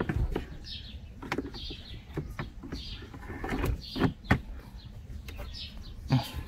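Cabin air filter's plastic frame knocking and scraping against its housing as it is pushed back into the slot behind the glovebox: a string of irregular sharp knocks, the loudest near the end.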